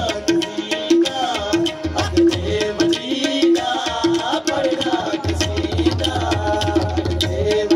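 Qawwali music: harmoniums and hand drums playing a steady, brisk rhythm under a singing voice.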